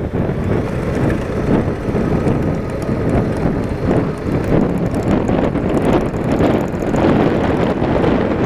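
Motorcycle on the move: wind buffeting the microphone over the running engine and road noise.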